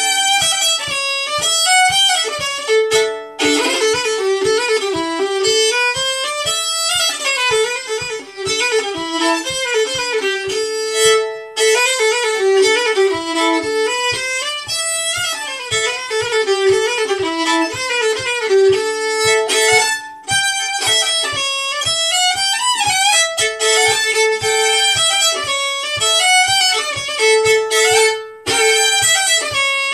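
Solo fiddle playing an old-time tune, with a held open-string note ringing under the melody much of the time. A steady low thump about twice a second keeps time beneath it.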